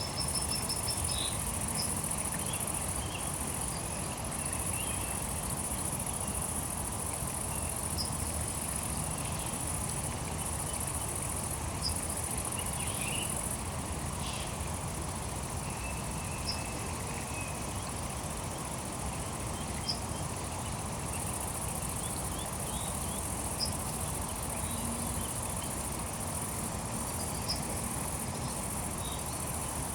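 A high, steady insect chorus that drops out for several seconds near the middle, over a low, even rushing background, with scattered short bird chirps.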